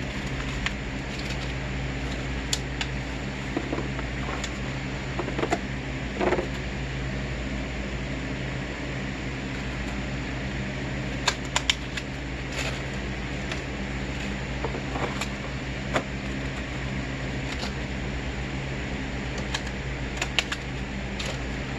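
A machine's steady hum, with scattered sharp clicks and light knocks over it.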